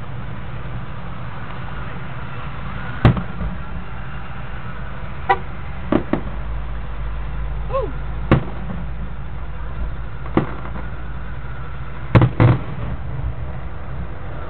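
Fireworks going off: about eight sharp bangs at irregular intervals, two in quick succession near the end, over a steady low rumble.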